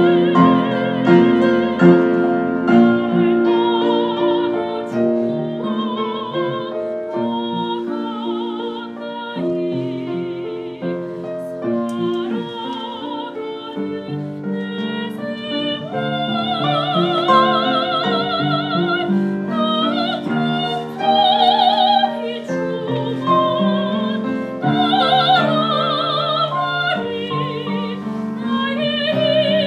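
Soprano singing a solo with wide vibrato over piano accompaniment. About halfway through, the voice rises to louder, long held high notes.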